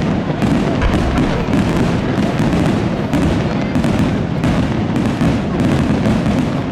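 Aerial firework shells bursting in rapid succession: a dense, continuous barrage of bangs and crackling reports with no pause.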